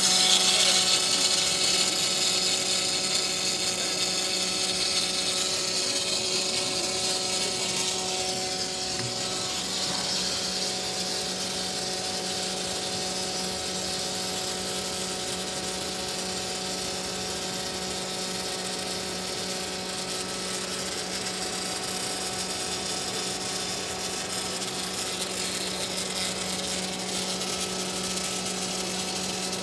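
Robotic MIG (gas metal arc) welding arc from a Miller welding cobot, a steady crackling sizzle as the torch runs a weld bead along the joint, over a steady low hum.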